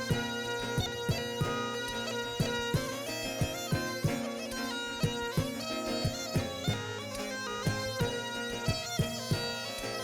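Tsambouna, the Mykonian goatskin bagpipe with a double reed chanter, playing a lively reedy tune over a steady beat of sharp strikes, about three a second.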